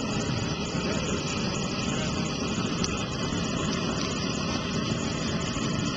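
Steady roaring rush of a propane burner flame, running evenly without a break.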